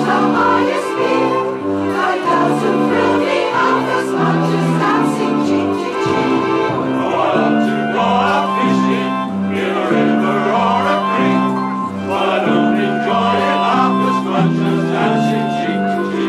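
Mixed community choir of men's and women's voices singing together, moving between held notes.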